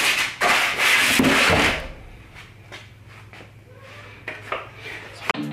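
Cardboard shipping box scraping and rubbing as it is lifted off a packed bicycle, loud for about two seconds. Then a few quieter knocks and rustles follow.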